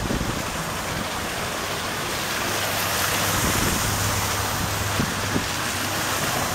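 Cars driving past on a wet, slushy street, tyres hissing steadily, with a low engine hum in the middle and two light knocks about five seconds in.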